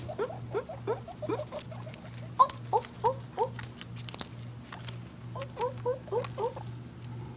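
Guinea pigs squeaking: three runs of short rising squeaks, about three a second, at the start, around two and a half seconds in, and near the end, with scattered clicks and rustling from the wood-shaving bedding.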